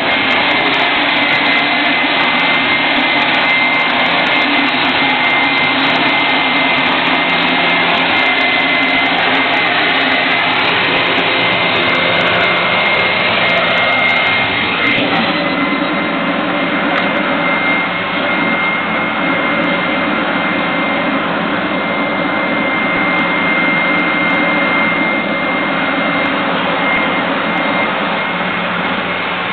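Leaf blower running steadily at constant speed: an even rush of air with a steady high whine over it.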